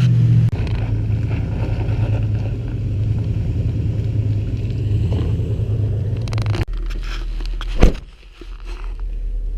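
Jet boat engine running with a steady drone, its pitch dropping slightly at the start. It cuts off abruptly about two-thirds of the way through, leaving a quieter low hum and a single sharp knock near the end.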